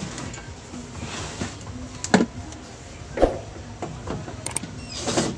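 Knocks and scrapes of hands working at a CRT television's plastic back cover, with two louder knocks about a second apart near the middle.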